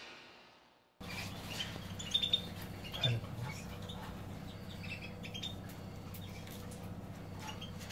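Small cage birds chirping faintly in short, high chirps, starting about a second in, over a steady low electrical hum.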